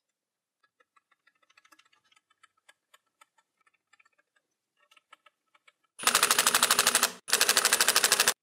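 Faint small clicks of parts, screws and a hex key being handled, then a cordless impact driver hammering M3 screws into the printer's motor holder. It comes in two loud, rapid rattling bursts with a brief stop between them.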